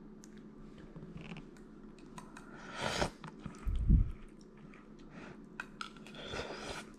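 A person tasting a spoonful of seafood and sausage gumbo: quiet chewing and mouth noises with small clicks. There is a short burst of noise about three seconds in, and a low thud just after it, which is the loudest moment.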